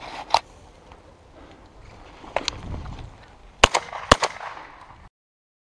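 Shotgun fired at flushing game birds: a series of sharp reports, the two loudest about half a second apart near the end. The sound cuts off suddenly just after them.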